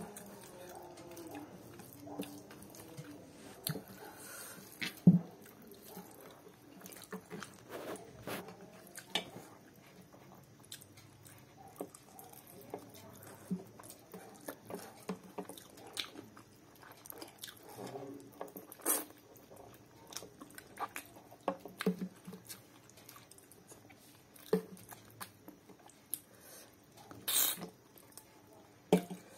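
Close-miked eating sounds: wet chewing and lip smacks of a mouthful of curry-soaked rice, with fingers squishing and mixing rice on the plate between bites. Short clicks and smacks come irregularly, with a sharp one about five seconds in and a longer, louder bite on a chicken piece near the end.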